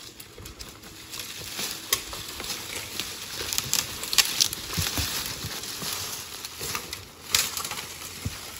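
A horse's hooves crunching and rustling through dry leaf litter as it is ridden at a walk. The crunching is irregular, with scattered sharper cracks, and is loudest around the middle.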